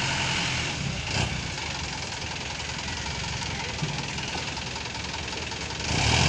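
Light box truck's engine running at low revs as the truck rolls slowly past, a steady low hum with a sharp knock about a second in and a brief louder surge near the end.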